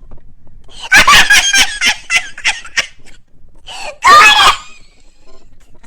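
A person laughing loudly and shrieking, in a run of short bursts and then one louder outburst about four seconds in.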